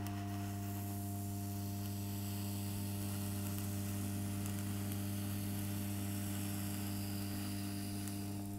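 Proxxon hot wire foam cutter giving a steady electrical hum while its heated wire cuts through a block of XPS foam.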